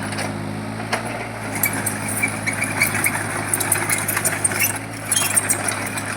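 Mini excavator's diesel engine running steadily at idle, with scattered metallic clinks and knocks.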